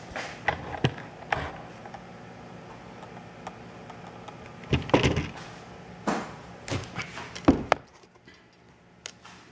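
Hard plastic knocks and clacks from a headlight housing and its parts being handled on a workbench: a few light taps early, the loudest knocks about five seconds in, then several more before it goes quiet.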